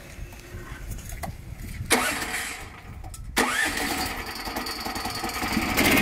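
The Junior Peterson swingblade sawmill's engine being started: it fires about two seconds in and fades, then catches on a second try a second and a half later and keeps running, getting louder near the end as it revs up.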